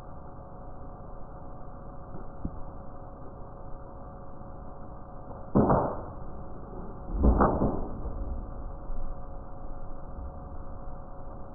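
Boxer dog breathing out sharply through its nose twice, two short huffs about a second and a half apart, over a steady low hum.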